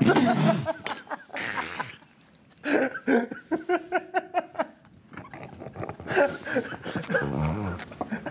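Two men laughing hard. In the middle, one lets out a run of quick, even ha-ha pulses, about four or five a second.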